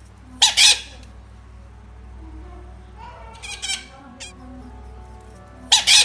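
Harsh animal squawks or screams in three short bursts: about half a second in, again around three and a half seconds, and once more at the end, over steady background music.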